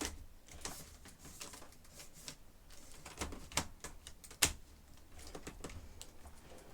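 Irregular clicks and knocks, with one sharper knock about four and a half seconds in, as a vacuum cleaner is handled and moved aside; no motor is running.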